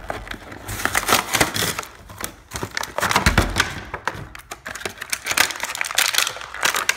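Clear plastic blister packaging and cardboard of a boxed action figure being pulled open by hand: repeated crinkling and crackling in several bursts.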